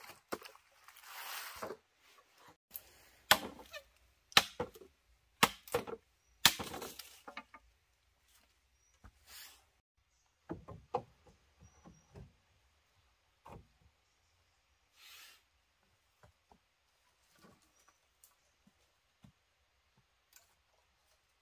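Sharp chopping and knocking strikes on wood, about one a second for the first seven seconds, then a few scattered softer knocks and rustles.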